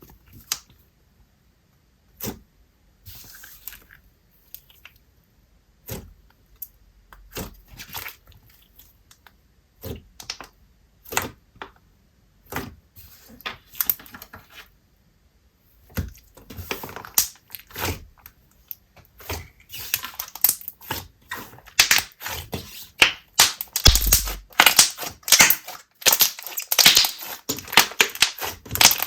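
Thick, glossy slime being poked, pressed and stretched by hand, giving separate sticky clicks and pops, then from about two-thirds of the way in a dense, louder run of crackling clicks as it is worked faster.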